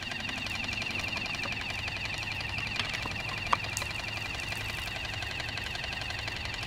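Cicadas buzzing in a steady, rapidly pulsing high drone, with two short sharp clicks about three seconds in.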